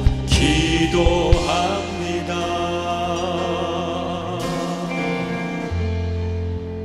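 Worship band ending a praise song. A last held sung note with vibrato comes over a few drum hits in the first two seconds, then the band's chord rings on steadily.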